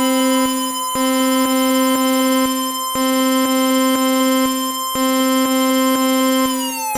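Synthesized emergency-alert tone: a loud, steady chord of electronic tones that breaks off briefly about every two seconds, over faint regular ticks. Near the end the upper tones start to fall in pitch.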